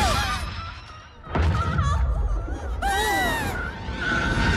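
Cartoon soundtrack: background music with a character's high yelling cries and a sudden loud sound effect about a second and a half in.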